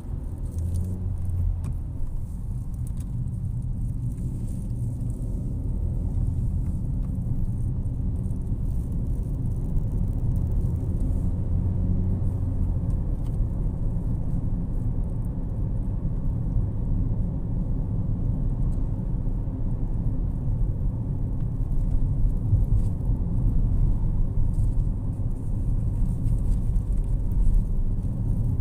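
A car's engine and tyre road noise heard from inside the moving car's cabin: a steady low rumble that grows a little louder in the second half.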